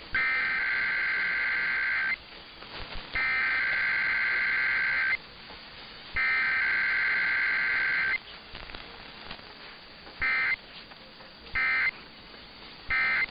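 Emergency Alert System SAME digital header for a Required Weekly Test: three loud warbling data bursts of about two seconds each, a second apart, followed near the end by three short end-of-message bursts.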